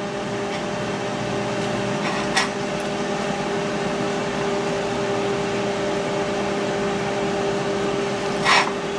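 Steady hum of a running kitchen appliance with a constant low tone. A fork clicks once against the squash about two and a half seconds in, and there is a short scrape near the end.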